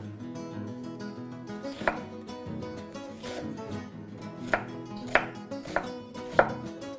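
Chef's knife chopping a red onion on a wooden cutting board: sharp knocks of the blade on the board, one about two seconds in and four more in quick succession near the end, over background music.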